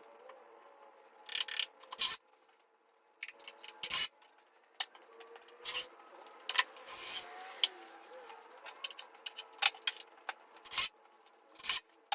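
Workshop handling of wooden pieces: a series of short scrapes, rubs and knocks, with longer rubbing sounds about a second and a half in and about seven seconds in.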